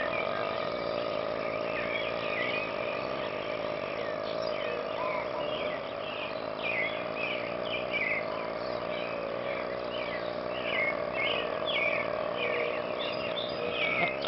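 Steady background hum with many short, high chirps scattered through it, like birds or insects outdoors.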